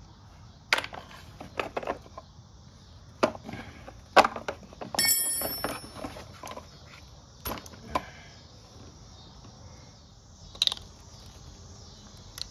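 Small metal carburetor parts clicking and knocking together as they are handled and fitted by hand, in a scattered series of sharp clicks, with one ringing metallic clink about five seconds in.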